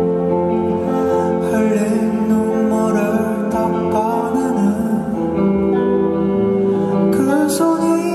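Live band music: a male singer sings in Korean over a hollow-body electric guitar and the band.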